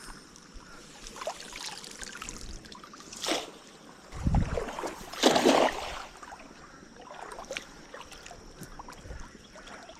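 Water trickling and splashing as a cast net is hauled out of a creek, with a low thump about four seconds in and a louder splash about five seconds in.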